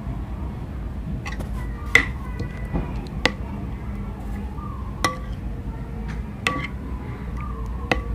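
Metal spoon stirring a thick sauce in a ceramic bowl, clinking against the bowl about six times, each clink ringing briefly, over a steady low hum.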